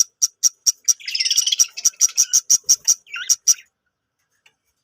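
Budgerigars chirping: a rapid run of short, high chirps, about four a second, with a burst of warbling chatter about a second in. The calls stop after about three and a half seconds.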